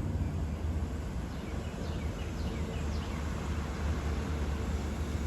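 Outdoor ambience on the water: a steady low rumble with a faint steady hum, and birds chirping in a run of quick falling notes about a second and a half in.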